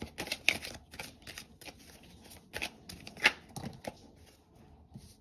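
A deck of cards being shuffled by hand: an irregular run of soft card slaps and riffles, with the sharpest snap about three seconds in, thinning out near the end.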